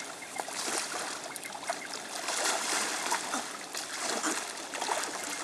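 Whipray splashing and churning the surface of shallow water as it feeds at a person's hands: a continuous run of quick splashes and sloshing.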